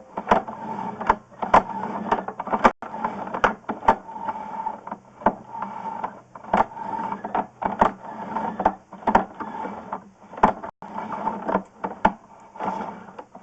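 Sewer inspection camera and push cable being pulled back through a drain line: a steady mechanical hum with irregular clicks and knocks about once or twice a second.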